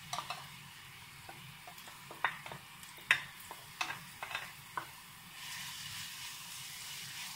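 Chopped onion and garlic sizzling as they drop into hot oil in a frying pan, with a wooden spoon clicking sharply against the bowl and pan over the first five seconds as they are scraped in. About five seconds in the sizzle grows louder as the spoon stirs them through the oil.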